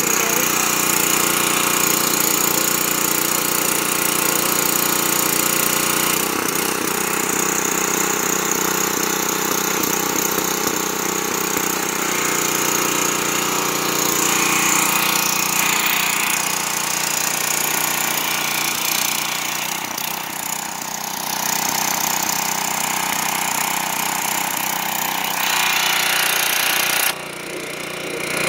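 Pull-started gas engine of a Craftsman pressure washer running steadily under load, with the hiss of the high-pressure water jet spraying; the sound drops sharply for a moment near the end.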